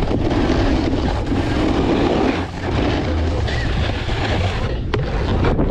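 Snowboard sliding and scraping over groomed snow at speed: a steady rumbling hiss, with a short dip about two and a half seconds in and two sharp knocks near the end.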